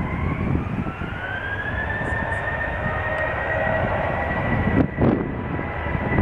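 Boeing 737-800's CFM56-7B jet engines spooling up for takeoff: a whine that rises over about two seconds and then holds steady, over a low rumble. Wind buffets the microphone about five seconds in.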